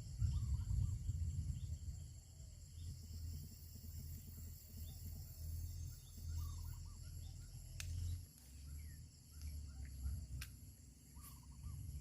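Outdoor countryside ambience: a steady high insect drone with small birds chirping in short repeated calls over a low rumble. Two sharp clicks come near the end.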